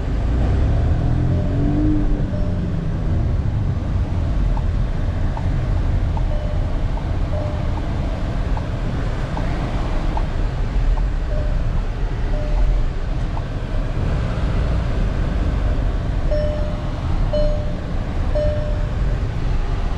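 Cabin sound of a Skoda Slavia with the 1.0-litre three-cylinder turbo petrol engine, driving at low speed: a steady engine and road rumble. Near the end a few short beeps repeat about once a second.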